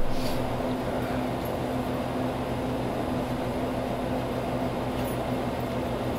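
Steady low machine hum with a constant drone, from running equipment in a convenience store.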